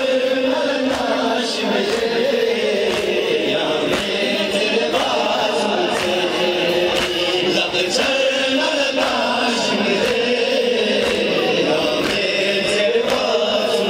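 A large group of men chanting a Muharram mourning lament (noha) together, their voices held in long drawn-out lines.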